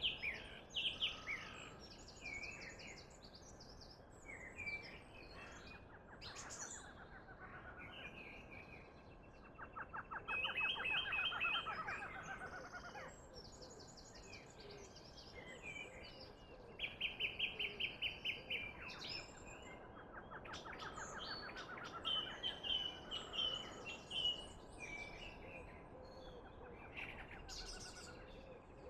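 Several wild birds calling and singing in overlapping chirps and whistles over a faint steady background hiss, with rapid trills around ten seconds in and again a little past halfway.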